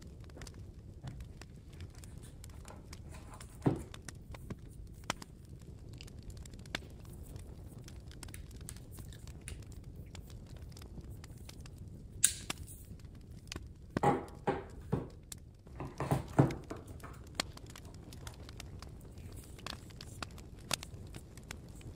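Paper and plastic packaging of MacBook Pro accessories being handled and unwrapped: light rustling and crinkling with scattered soft clicks and taps, and a few louder bursts of crinkling about two thirds of the way through.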